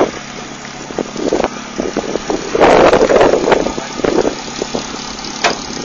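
Suzuki Samurai 4x4 engines running at idle, with a louder rushing burst from about two and a half to three and a half seconds in.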